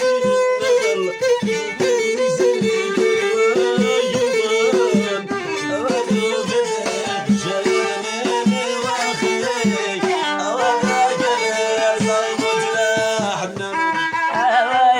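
Instrumental passage of traditional Moroccan music: a violin carrying a gliding melody over a steady rhythmic accompaniment, with no singing.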